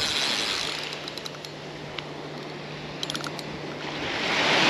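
Penn Battle spinning reel being cranked against a hooked fish on a surf rod: a steady gear whir with a few light clicks about three seconds in. Surf washes in and swells louder near the end.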